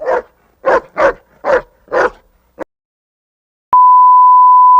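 Five quick loud barks in a little over two seconds, then a loud steady hearing-test beep tone starts about a second before the end.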